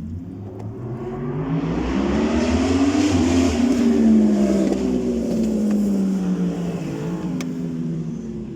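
A motor vehicle passing by: its engine tone rises as it approaches, is loudest about four seconds in, then drops in pitch and fades as it moves away. A single sharp click comes near the end.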